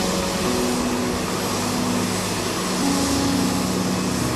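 Jet engines of Boeing 767 airliners on the runway just after a landing: a steady rush with low humming tones that shift in pitch.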